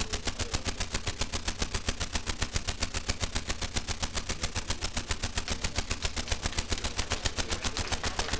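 Sound output of a ZX Spectrum 256-byte intro: a fast, even rattle of noise pulses, about nine a second, like a machine-gun rhythm.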